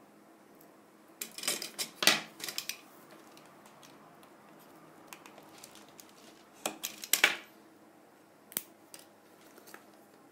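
A thin wooden model-building piece being cut by hand: a run of sharp clicks and cracks about a second and a half in, another about seven seconds in, and a single click shortly after.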